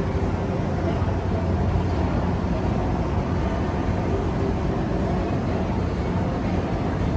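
Steady low hum and rumble of indoor ambience, with faint background voices.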